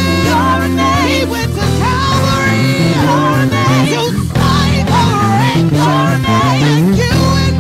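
Live gospel worship song: a woman singing lead with vibrato into a microphone, joined by other singers, over a band with bass and drums.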